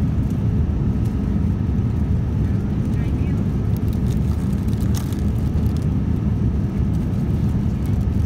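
Steady low rumble of a Boeing 787-9 economy cabin in flight, the engine and airflow noise that fills the cabin, with a few faint ticks from handling the meal tray.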